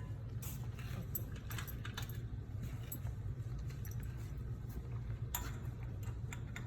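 Light metallic clinks and rattles, a few scattered taps, as small parts and tools are handled during a brake and hub job, over a steady low hum.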